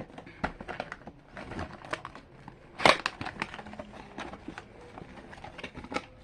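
Packaging of a boxed slime kit being opened and unpacked by hand: a run of crinkles, rustles and small clicks, with one louder rustle about three seconds in.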